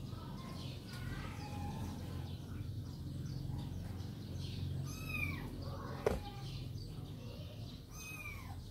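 Two short, high-pitched arched animal calls, about three seconds apart, over a steady low hum, with a single sharp click between them.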